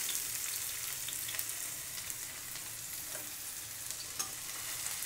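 Sliced onions frying in hot mustard oil in a kadhai: a steady high sizzle with small crackles and ticks scattered through it.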